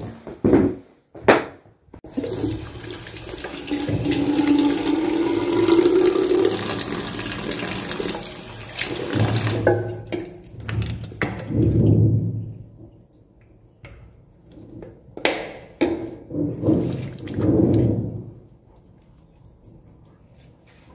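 Two knocks, then water running at a bathroom sink for about seven seconds, followed by a run of splashes and rubbing as a face is washed with wet hands.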